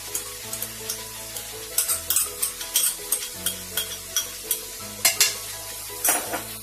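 Vegetables sizzling in a hot kadhai while coriander paste is scooped in, with a run of sharp, irregular scrapes and taps of a spoon and spatula against the pan from about two seconds in.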